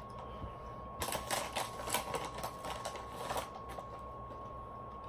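Plastic chip bag crinkling as it is torn open and handled, a run of irregular crackles starting about a second in and lasting a couple of seconds.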